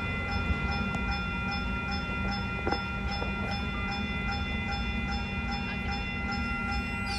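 Train running past a level crossing, a steady low rumble, while the crossing's warning bell rings about three times a second over steady high tones.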